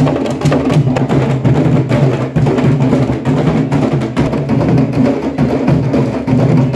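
A candombe drum section (tambores chico, repique and piano) playing a dense, steady rhythm, struck with stick and open hand.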